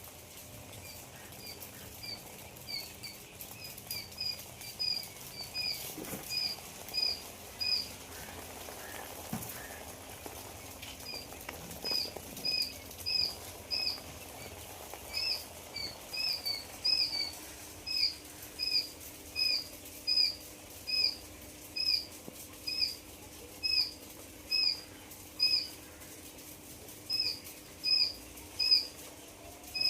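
Quail chirping: a long series of short, high, sharply hooked calls, about two a second. The calls pause for a few seconds about a quarter of the way in, then resume louder.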